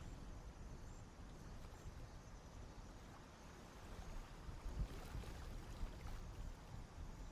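Faint outdoor ambience: a low, uneven rumble like wind or water on the microphone, with a couple of soft knocks about five and six seconds in.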